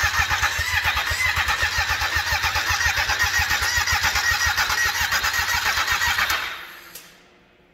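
Yamaha Apex snowmobile engine, a four-cylinder four-stroke, being cranked over by its starter in an even rhythm without firing. It stops about six and a half seconds in. The engine fails to start, which the builder thinks may be because the cam sensor is in backwards.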